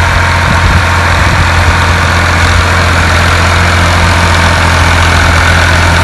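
Tractor engine running steadily with a constant low hum.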